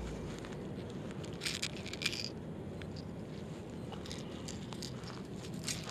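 A few short clicks and small metallic clinks, the loudest about a second and a half and two seconds in, as the hooks of a plastic jerkbait are worked free from a small largemouth bass's mouth.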